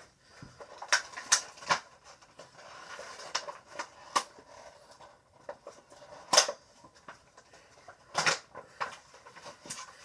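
A plastic toy and its packaging being handled: scattered clicks and taps, the loudest about six seconds in.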